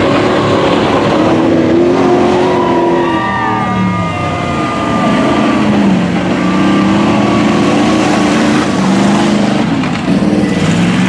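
Mud truck's engine revving hard as it drives through a mud pit, its pitch climbing and dropping several times, with mud and water splashing around the tyres.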